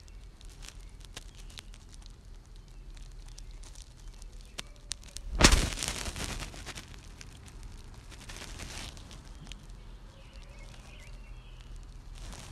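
Close rustling and crackling handling noise, a hand moving over a fleece blanket and the phone. About five and a half seconds in there is one loud sudden rub or bump, with softer rustling later on.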